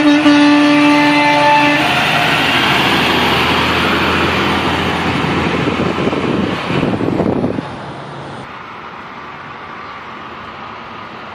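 A truck's air horn blowing, cutting off about two seconds in. It is followed by the loud noise of a heavy truck driving past, which drops off suddenly near eight seconds into quieter traffic noise.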